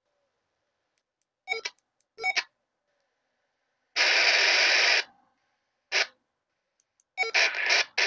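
Baofeng UV-5R handheld radio receiving the ISS's 145.800 MHz FM downlink: short bursts of static as the squelch opens and closes, a loud rush of hiss lasting about a second around the middle, and near the end the signal comes back as continuous noisy radio audio.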